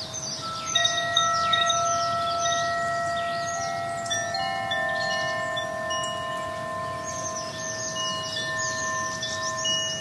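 Wind chimes ringing: several long, overlapping tones at different pitches under a high, shimmering tinkle of quick strikes, loudest about a second in.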